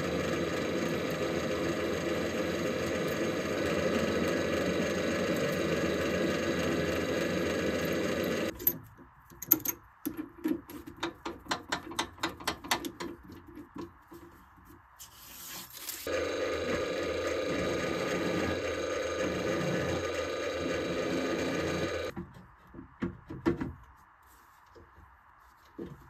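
Drill press running while drilling tap holes for M8 threads in a thick steel plate, stopping after about eight seconds. A run of clicks and rattles follows as the bit is swapped in the chuck, then the press runs again for about six seconds and stops, followed by a few more clicks.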